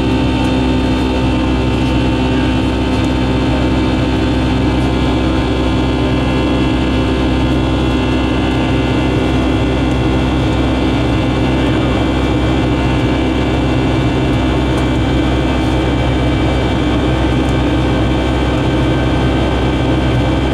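Boeing 757-200's Pratt & Whitney PW2000 turbofan at climb power, heard from inside the cabin beside the engine: a loud, steady drone with several constant tones over a low rumble.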